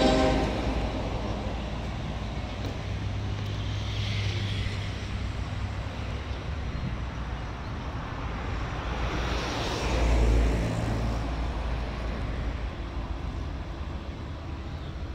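Diesel locomotive approaching slowly, its engine running with a steady low rumble; its horn cuts off right at the start, and the engine swells louder for a moment about ten seconds in.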